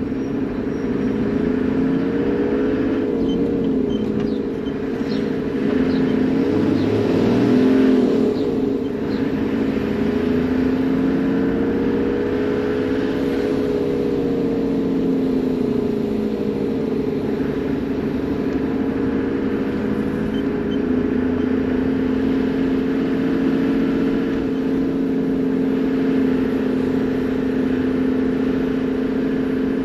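Toyota Land Cruiser HZJ78's straight-six diesel engine running while driving. Its pitch rises and falls with speed changes through the first half, is loudest about eight seconds in, then settles to a steady note.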